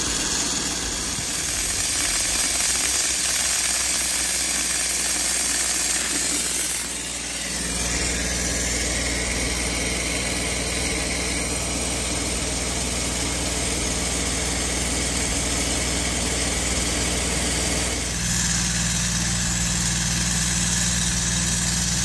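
Branson compact tractor's diesel engine running steadily, its exhaust venting through the open plug port on the exhaust manifold instead of through the clogged DPF. The engine note shifts abruptly about seven seconds in and again near eighteen seconds.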